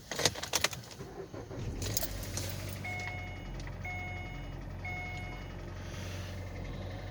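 Keys clicking in the ignition, then a 2014 Kia Cerato's 2.0-litre four-cylinder petrol engine starting from cold and idling steadily, heard from inside the cabin, with three short dashboard chimes about a second apart in the middle. The engine has a knock that a diagnosis put down to scoring in cylinders 2 and 3, which the owner takes for piston knock.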